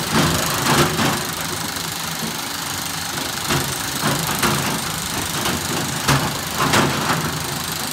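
Sany SY365H Pro excavator's diesel engine running steadily while loading andesite stone, with repeated knocks and clatter of rock, in clusters near the start, around the middle and again near the end.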